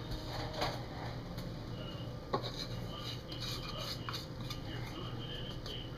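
A few light clicks and clinks of bowls and utensils handled on a kitchen counter while dry ingredients are measured out, over a steady low hum.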